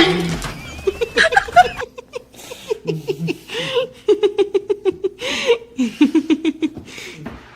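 A person laughing hard in high-pitched, rapid giggles, with gasping in-breaths between runs of laughter.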